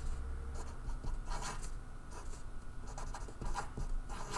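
Felt-tip marker writing on paper in a handful of short, separate strokes as letters and circles are drawn.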